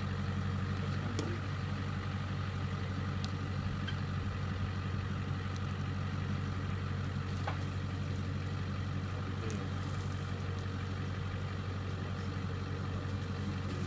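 A vehicle engine idling steadily, with no revving.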